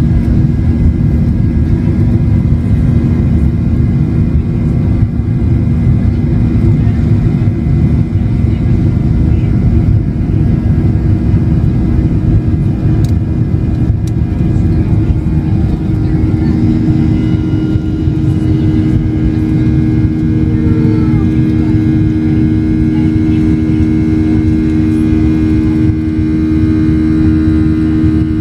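Airliner engines at takeoff power heard from inside the cabin: a loud, steady rumble with a steady hum, through the takeoff roll and liftoff. The hum grows stronger a little past halfway through.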